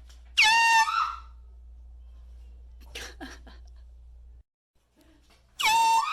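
Air horn blasted twice, a few seconds apart. Each is a loud, high blare of about half a second that opens with a quick upward slide in pitch and wavers as it ends.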